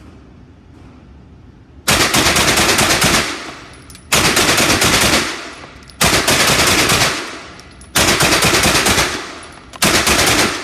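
CZ Scorpion EVO 3 S1 9mm semi-automatic carbine fired in five quick strings of rapid shots, each string lasting about a second and a half. The first string starts about two seconds in, and each one trails off in echo from the indoor range.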